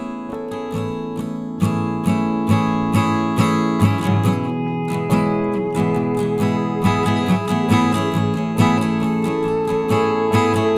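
Background music: an acoustic guitar strumming a steady rhythm, about two strums a second, with no singing.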